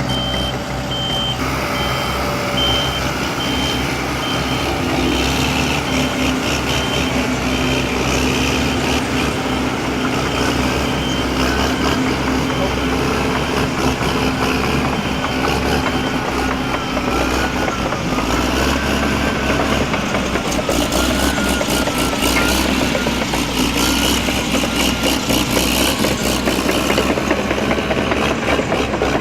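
Heavy vehicle engine running steadily, with a reversing alarm beeping at an even rate for the first dozen seconds. A wavering whine runs through the second half.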